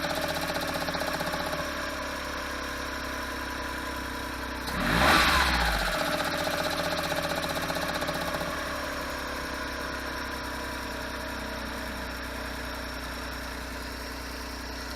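Autozam AZ-1's small three-cylinder turbo engine idling, with the rattle from around the gearbox that the owner is chasing. It is blipped once about five seconds in, rising and falling back to idle.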